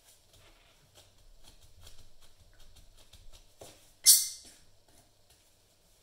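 Faint scraping and light tapping of gloved hands and a palette knife working a lump of soft pastel paste on a glass sheet, with one short, sharp hiss about four seconds in.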